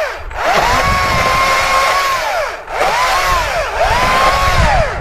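Chainsaw cutting into a downed cedar trunk: the saw runs at high revs, its pitch sagging in arcs as the chain bites into the wood, falling away twice as the throttle is let off, and dropping off at the end.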